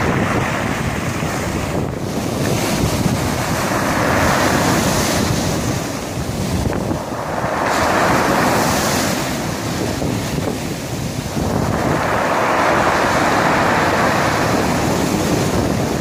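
Sea waves breaking and washing up over a pebble beach, the rush of surf swelling three times, with wind buffeting the microphone underneath.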